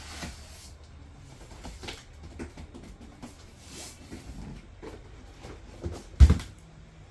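Scattered light clicks and knocks of computer hardware being handled and fitted, with one heavy thump about six seconds in.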